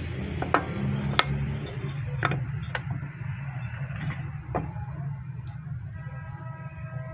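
Pieces of cut softwood handled and set down on a miter saw's metal table: several short, sharp taps and clacks, the loudest about half a second and a second in, over a steady low hum.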